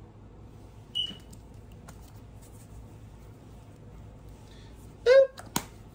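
Faint taps and shakes of a plastic spice shaker sprinkling garlic powder onto raw chicken drumsticks in a plastic bowl, with a short high squeak about a second in. Near the end comes a brief vocal sound, then a click.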